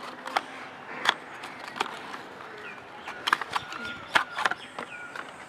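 Small cardboard box being opened by hand: scattered taps, scrapes and clicks of stiff cardboard flaps and lid.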